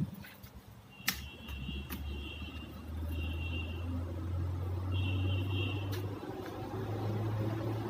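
A low, steady engine hum, typical of a motor vehicle running close by, comes in about a second in and carries on. Over it come a few sharp knocks of timber being handled and three short, high-pitched tones.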